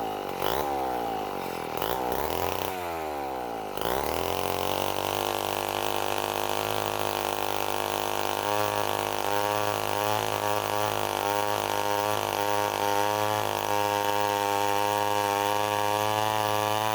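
1962 Wright C-50 two-stroke chainsaw revving up and down for the first few seconds, then held at a steady speed from about four seconds in while cutting wood. It cuts a little slow, its engine speed lower than usual.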